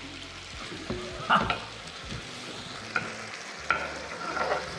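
Meat and onions sizzling in a hot pan while chopped cherry tomatoes are scraped off a wooden board into it with a knife, with a few short knocks and scrapes of knife on board.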